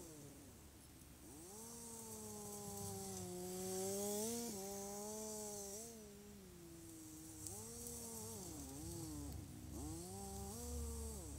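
Polaris Sportsman 800 ATV engine running faintly while plowing snow, its pitch rising and falling again and again as the throttle is opened and eased off.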